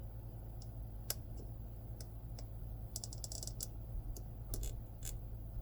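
Light, sharp clicks and taps of plastic press-on nail tips and small tools being handled, scattered with a quick cluster about three seconds in, over a low steady hum.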